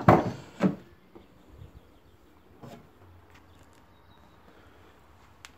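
Two short knocks in the first second, then near-quiet room tone with a faint low hum and a few soft clicks.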